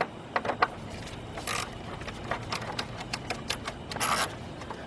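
Hand ratchet clicking in short runs as a bolt is tightened, with a few louder rasping strokes.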